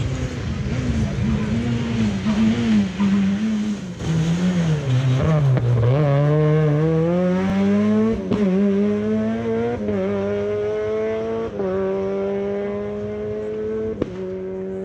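A rally car's engine at full stage pace. The revs waver at first, then climb hard, dropping back sharply at each of several upshifts. A short sharp crack comes at a couple of the shifts.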